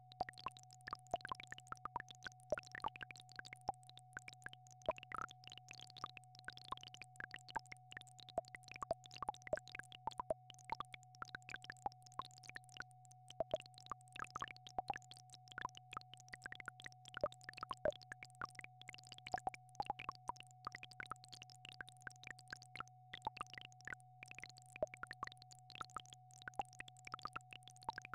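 Synthesized healing-frequency tone track: a steady mid-pitched tone over a steady low hum, sprinkled with many soft, irregular plinks and clicks.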